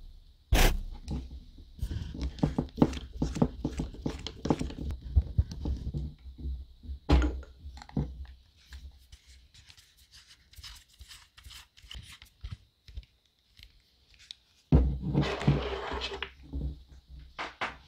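Handling noise of antennas being unscrewed and screwed onto handheld ham radios: irregular scratching, rubbing and small clicks at the threaded connectors, with a few sharper knocks as the radios are handled on the table.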